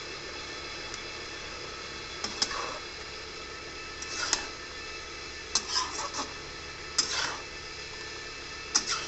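Metal spatula scraping and clinking against a metal wok as chunks of pork are stirred, in about five short bouts a second or two apart, over a steady hiss from the pan.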